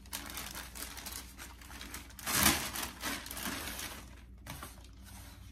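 Packaging wrap crinkling and rustling as it is handled and pulled off, with a louder rustle about two seconds in and softer handling toward the end.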